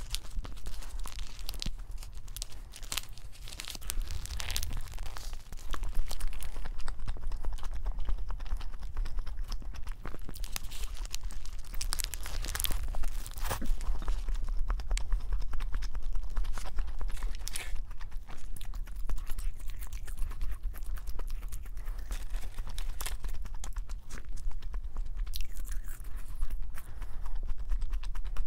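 Chewing and crunching of a crispy-coated fried burger, with irregular crisp crackles as the coating breaks between the teeth.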